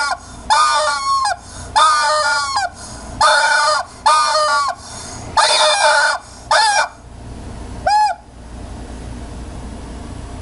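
Domestic fowl giving a series of about eight loud honking calls, each under a second long, each pitched with a slight fall at the end. The last call comes about eight seconds in and is the shortest. A low hum runs underneath.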